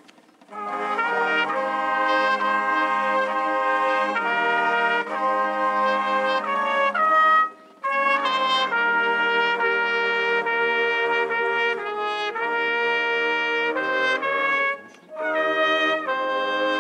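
Brass band of trumpets, trombones and saxophones playing a slow tune in long held chords, with brief breaks between phrases near the start, about halfway through and near the end.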